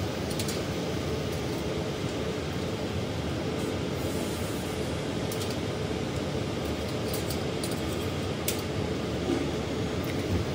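Biosafety cabinet blower running: steady airflow noise with a faint hum. A few light clicks come from plastic labware being handled on the steel work surface.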